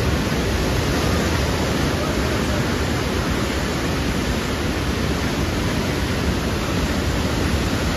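Swollen Koshi River in flood, water rushing and churning at the barrage as a steady rushing noise.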